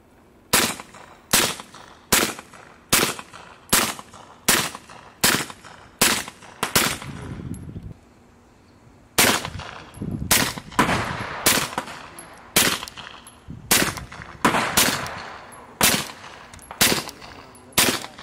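Suppressed 9mm pistol shots through an AAC Illusion 9 suppressor, fired from a CZ P-09 and a Beretta 92G-SD. A steady string of single shots, about one every 0.8 s, then a short pause and a second string, a little less even, with some shots closer together.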